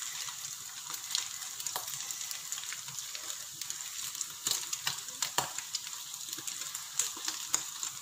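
Stir-fry of sausage, egg and greens sizzling in hot oil in a wok, a steady hiss with scattered crackles and pops.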